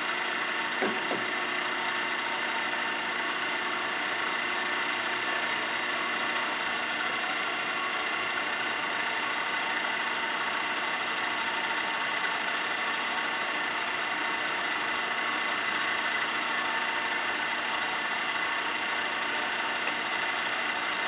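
Ikeda RM-1175 heavy-duty radial arm drill press running with its spindle on power feed: a steady gear whine and hum from the spindle drive and feed gearbox. One light click comes about a second in.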